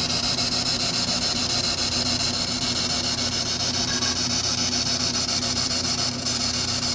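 Spirit box (ghost box) sweeping through radio stations: a steady hiss of radio static with a fast, even choppy flutter and a low steady hum.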